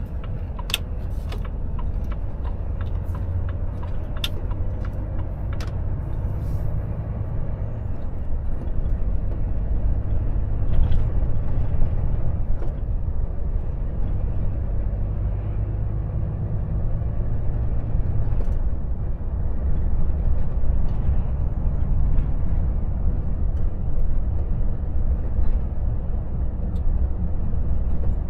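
Volvo FH truck's engine running with a steady low rumble, heard from inside the cab, with a few sharp clicks in the first six seconds.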